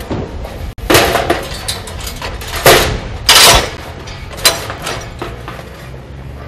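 Hot-dip galvanised steel sheep turning crate clanking and rattling as it is worked shut around a sheep: a handful of sharp metal knocks, the loudest a rattle a little after three seconds in.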